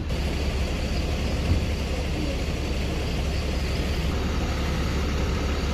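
Steady low rumble of an idling vehicle engine, with street noise.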